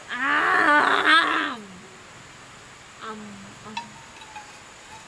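A loud vocal cry that wavers up and down in pitch for about a second and a half, followed by a few faint short calls.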